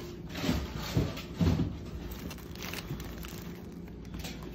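Handling noise as things on a tabletop are moved about: a few soft knocks and rustles, the loudest about a second and a half in, over a faint steady hum.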